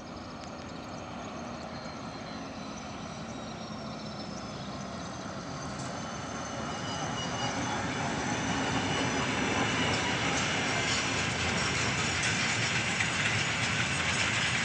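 TEM2K shunting diesel locomotive hauling a freight train past, a steady rumble and rattle of the locomotive and wagons that grows louder over the first eight seconds or so as the train draws near, then stays loud.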